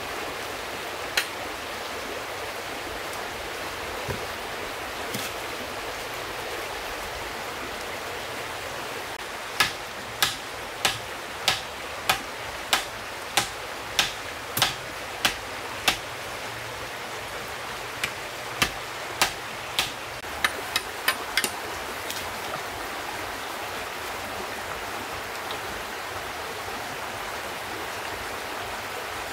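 A stream rushes steadily. Over it come runs of sharp chopping strikes of a hand tool on wood, a few single ones first, then about eleven evenly spaced blows, roughly one every half second or so, from about ten seconds in, and another quicker run of about eight near twenty seconds in.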